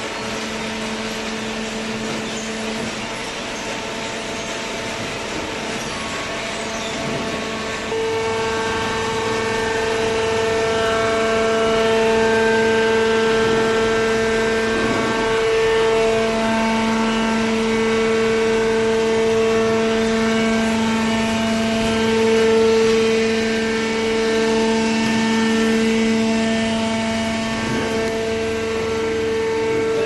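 Cardboard baling machinery running, a steady machine hum with a whine that swells and shifts in pitch. It gets louder about eight seconds in.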